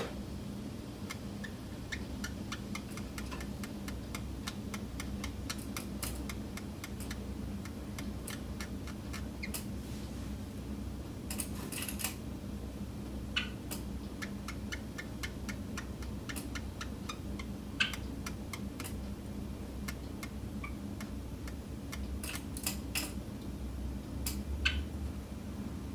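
Steady low room hum with many faint, irregular small clicks and ticks scattered through it, a few a little louder.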